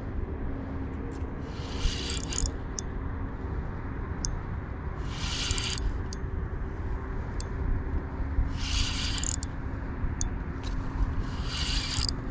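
Spinning reel being cranked to retrieve line, heard over a steady low rumble, with short hissing buzzes about every three seconds and scattered light ticks.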